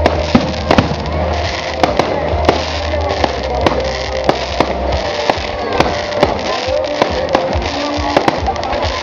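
Fireworks display: many sharp bangs and crackles of bursting shells, coming irregularly, over music playing with the show; a deep low note in the music stops about five seconds in.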